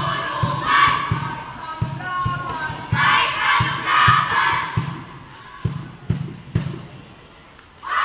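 A group of young students chanting and shouting in unison, with a low thump about twice a second in time with their marching steps. About halfway through the chanting stops, leaving a few separate knocks, and a loud group shout breaks out right at the end.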